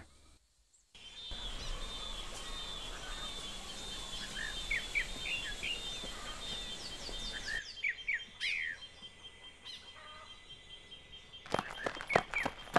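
Birds chirping in short calls over a steady high-pitched drone and a haze of outdoor noise. About a second and a half before the end, quick running footsteps on a dirt road begin.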